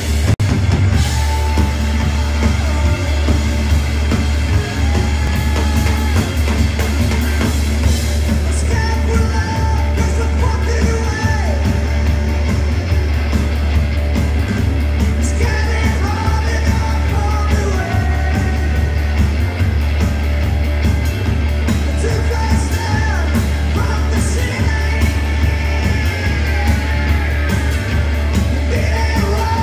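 Rock band playing live and loud: electric guitar, drum kit and keyboard with a sung vocal, the mix dominated by a heavy, booming low end.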